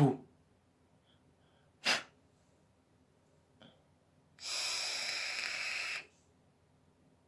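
A short breathy 'whew', then a sharp breath about two seconds in. From about four and a half seconds in comes a steady hiss lasting about a second and a half: a long draw on a sub-ohm vape tank, air rushing through the tank as it fires.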